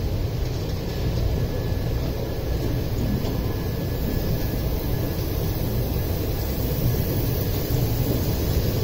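Passenger train running along the track: a steady rumble of wheels and coaches.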